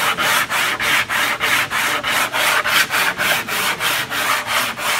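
Small hand sanding block with 36-grit paper scrubbed rapidly back and forth over a hydroplane's carbon-cloth bottom, about five strokes a second: scuffing the shine off the low spots so new epoxy will stick.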